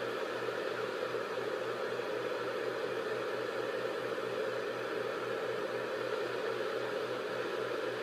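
Steady white-noise track: an even, unchanging hiss that is fullest in the lower middle range, with a faint low pulsing underneath.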